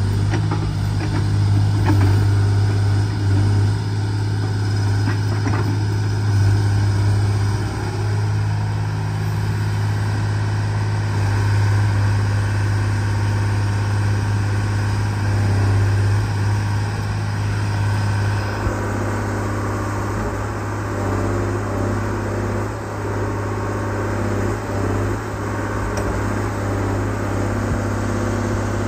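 Case 125B crawler excavator's diesel engine running steadily with a strong, even low drone as the machine works.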